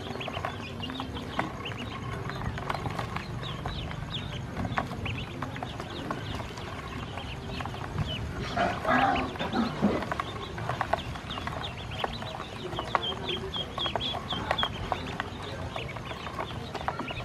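Ducklings peeping while they peck feed from a plastic basin, their bills clicking against the plastic. A louder, lower call comes about nine seconds in, and a quick run of high peeps near the end.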